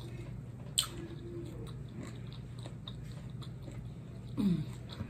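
A person chewing a crispy, sauced fried chicken wing close to the microphone, with small wet clicks and crunches as they chew. There is one sharp click about a second in and a short falling hum near the end.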